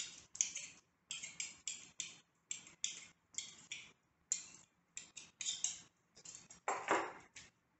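Two knives cutting cold butter into flour in a ceramic mixing bowl: a quick, uneven run of short scraping clicks, about two a second, as the blades strike and scrape the bowl, with one longer, louder scrape near the end.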